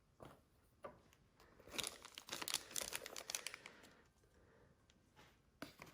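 Packaging being handled, with crinkling and rustling. A few separate crackles come first, then a dense run of crinkles in the middle, then a few more near the end.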